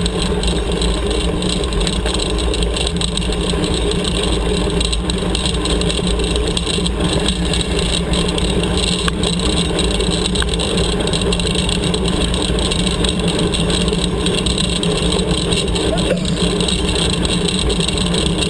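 Steady wind rush and rumble on a bike-mounted camera, with the rolling crunch of tandem mountain bike tyres on a gravel road.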